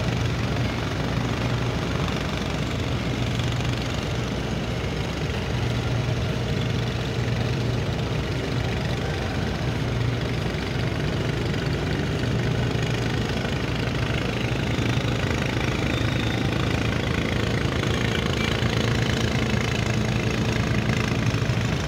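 A general cargo ship's diesel engine running steadily, a low, even hum.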